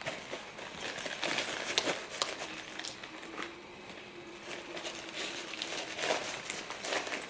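Toiletries and their packaging being handled and packed into a bag: irregular clicks, taps and rustles.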